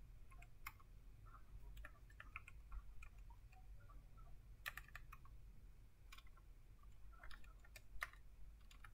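Faint computer keyboard typing: scattered, irregular keystrokes with pauses between them, over a low steady hum.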